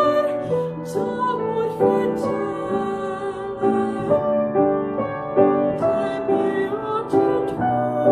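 Mezzo-soprano singing a French art song, accompanied on grand piano; the piano strikes a steady series of chords about every half second beneath the voice.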